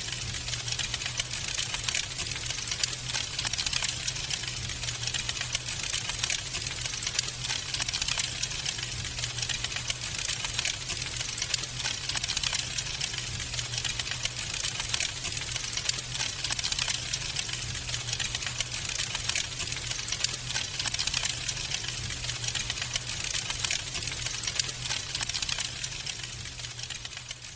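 Wood fire crackling in a fireplace: a dense, steady stream of small pops and snaps over a hiss, with a constant low hum beneath. It fades a little near the end.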